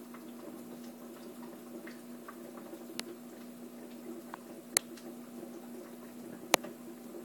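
Steady low hum of running aquarium equipment, with faint watery sounds and three sharp clicks a little under two seconds apart, the last two loudest.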